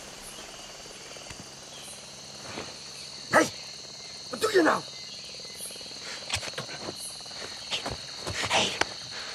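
Steady, high insect chirring over a faint woodland hush, broken by short voices: a sharp exclamation about three and a half seconds in, a brief spoken question just after, and more voices near the end.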